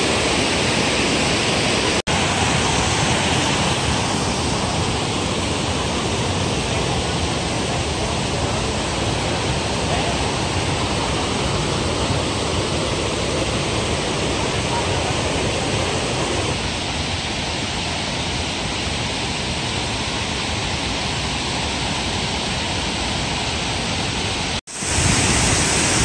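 Waterfall's rushing water as a steady, dense roar of noise, broken by two momentary dropouts: one about two seconds in and a slightly longer one near the end.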